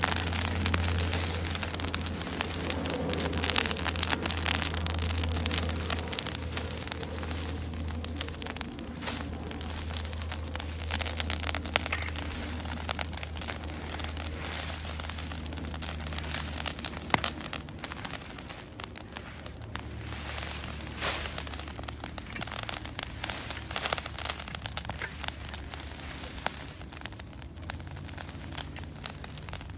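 Brush pile of green leafy branches burning, with dense, irregular crackling and sharp snaps over a rain-like hiss. A steady low hum runs underneath, weaker in the second half.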